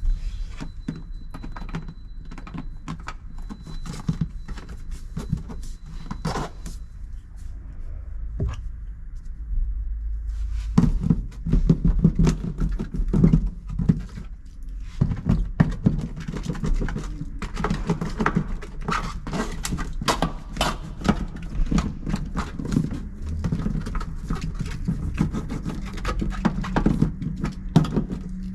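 Hand work fitting a sound-deadening mat onto a car body panel: irregular knocks, taps and scrapes, getting heavier and more frequent about a third of the way in.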